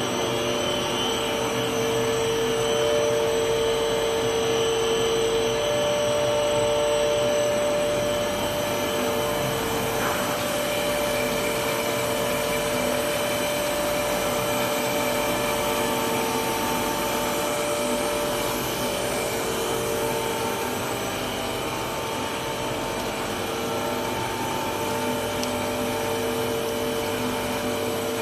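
Three-layer cast stretch film production line running: a steady machine hum and whine from its electric drive motors, with several steady tones over an even noise.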